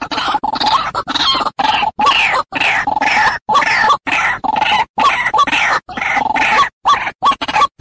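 White-breasted waterhen (ruak-ruak) calling, a quick string of repeated notes about two a second, each sliding down in pitch, played as a lure call for trapping the bird. The string is broken every second or so by brief, abrupt silent gaps.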